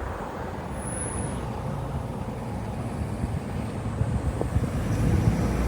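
Steady low rumbling background noise, growing a little louder near the end.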